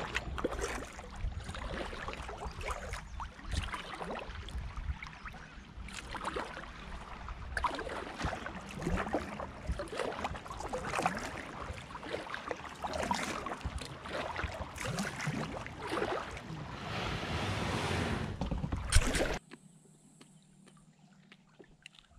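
Kayak paddling: water splashing and trickling from the paddle and against the hull in irregular bursts, with low wind rumble on the microphone. About nineteen seconds in there is a sharp knock, and the sound cuts off abruptly to a faint steady hiss.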